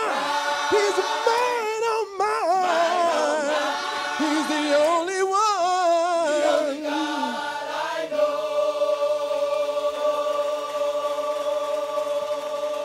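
Gospel choir singing with a male lead singer whose voice wavers with wide vibrato. About eight seconds in, the choir settles into one long held chord.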